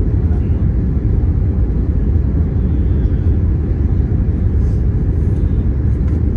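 Airbus A321neo cabin noise on landing approach: a steady low rumble of engines and airflow heard from inside the passenger cabin, with the wing flaps extended.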